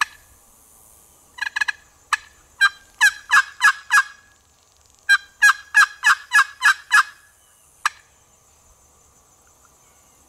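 Wooden box turkey call worked by hand, imitating hen turkey yelps. After a sharp click at the start and a few short single notes, it gives two runs of yelps, about five and then seven, roughly three a second, with a pause between the runs and one last note near the end.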